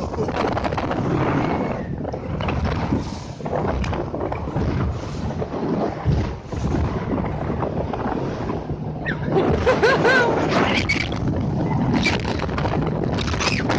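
Small motorboat running at speed over waves, its engine humming low under heavy wind buffeting on the microphone and irregular surges of spray and hull slap. From about nine seconds in, people's voices rise over the noise.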